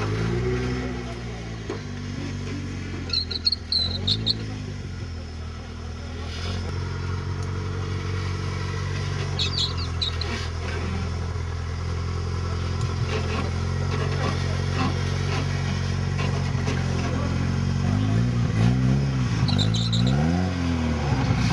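Off-road trial buggy's engine running at low revs, with throttle blips that make the revs rise and fall briefly at the start and about four seconds in, then a string of repeated blips near the end as it crawls down a steep bank.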